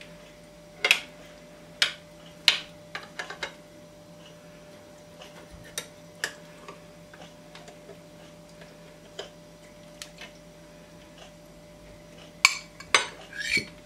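Metal spoon tapping and scraping against a glass baking dish and a glass bowl while scooping out soft baked pudding: scattered light clinks, with a cluster of louder clinks near the end.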